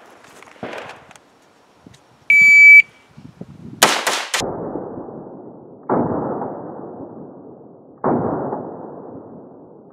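Electronic shot timer's start beep, one steady high tone. About a second later an AR-15 rifle fires: a quick string of shots, then single shots about two seconds apart, each trailing off in a long echo.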